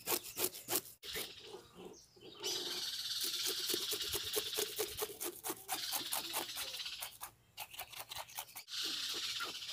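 Knife scraping the scales off a whole tambaqui on a wooden board: quick repeated rasping strokes, with a short pause about a second in and another near the end.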